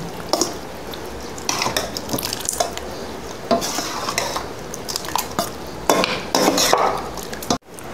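A steel spoon stirring thick, wet mango pickle in a steel pot, with irregular scrapes and clinks of metal on metal. The sound cuts out abruptly near the end.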